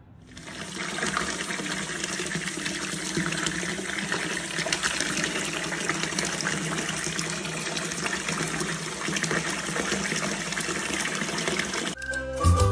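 Tap water gushing steadily into a bathtub as it fills. Music starts near the end.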